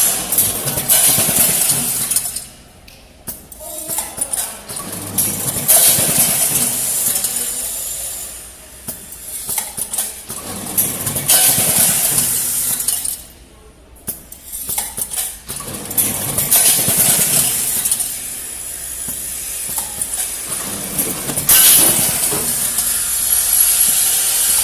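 SPM-25 screw-packaging machine running, with steady hissing and metal screws clinking and rattling. Its noise drops off briefly twice, about 11 seconds apart, as the work cycle repeats.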